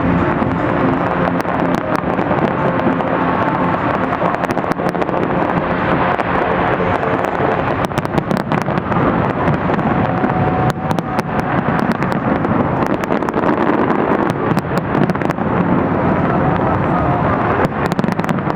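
Fireworks going off in many sharp, irregular bangs and crackles over a continuous loud din.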